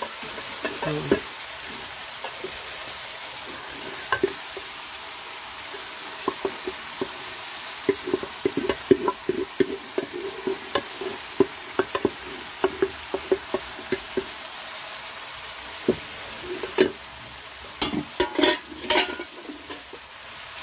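Bottle gourd, chana daal and masala frying in a pan with a steady sizzle. Through the middle, a steel pot is tipped over the pan and the rest of the boiled daal and gourd is scraped and knocked into it, giving a run of sharp clinks and thuds over the sizzle.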